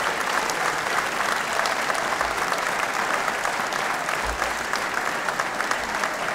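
Audience applauding: many people clapping steadily, a dense patter of hand claps.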